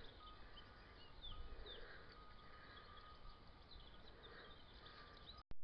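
Quiet rural outdoor ambience with faint, scattered bird chirps and a faint steady high tone. Near the end the sound drops out briefly with a short blip, where the recording is cut.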